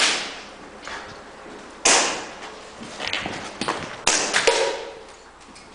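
Sharp single shots from airsoft guns, each tailing off in a short echo: one at the start, one about two seconds in, and two close together about four seconds in.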